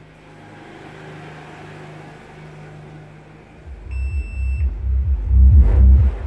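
Subwoofer driven by a TPA3116D class D amplifier board, playing a song's bass: a faint low hum at first, then about four seconds in loud, rhythmic bass pulses come in as the board's knobs are turned up. A short high beep sounds just as the bass starts.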